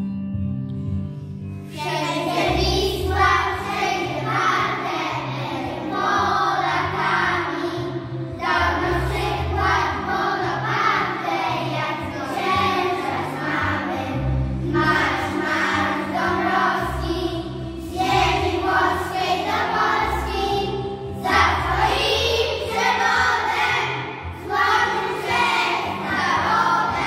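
A group of young children singing together over backing music with low bass notes. A short instrumental lead-in comes first, and the singing begins about two seconds in.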